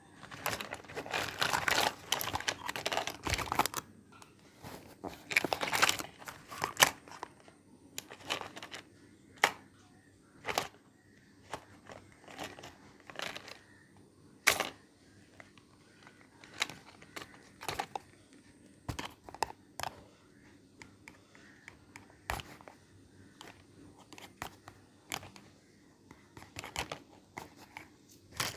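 Crinkling and tearing of packaging for the first several seconds, then scattered light clicks and taps about a second apart as small pieces of a miniature toy kitchen set are handled and set down.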